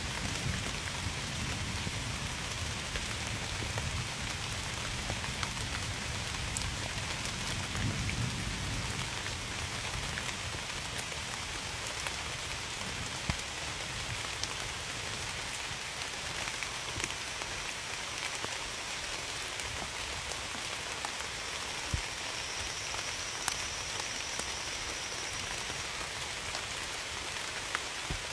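Steady rain hissing on a surface, with scattered sharp taps of single drops. A low rumble sits under it for roughly the first ten seconds and then fades.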